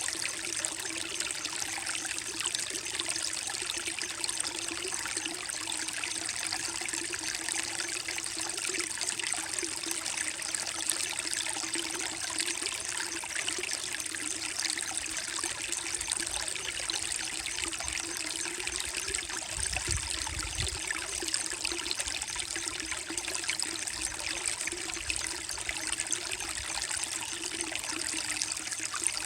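A small creek trickling and babbling steadily over mossy rocks, with a faint low rumble about twenty seconds in.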